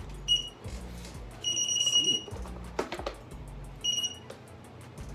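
Kingsong 16X electric unicycle beeping just after it is switched on: a short beep, a longer one of about a second, then another short beep, over background music with a steady beat. A knock sounds about three seconds in.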